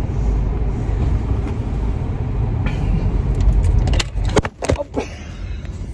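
Car cabin road noise while driving: a steady low rumble. About four seconds in, a few knocks and rattles as the camera or phone filming inside the car is handled and moved.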